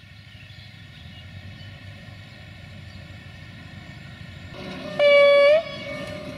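A rail track-maintenance vehicle, the UAM216, running on the line and growing louder as it approaches. About five seconds in it gives one short horn blast of roughly half a second.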